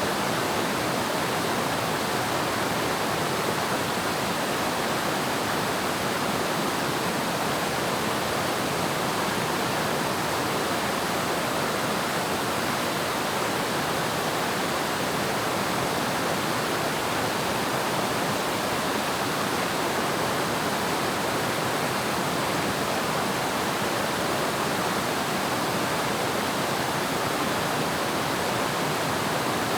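Waterfall: water pouring and splashing in a steady, even rush with no breaks.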